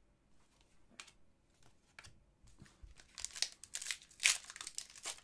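Faint light ticks of cards being handled, then from about three seconds in a run of plastic crinkling as a pack of hockey trading cards is handled.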